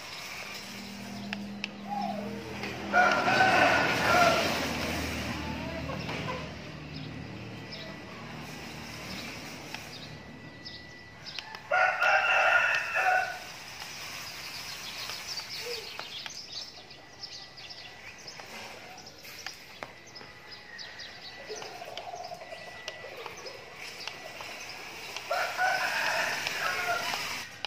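Rooster crowing three times, each crow about a second and a half long and the loudest sound here, over a faint steady high whine.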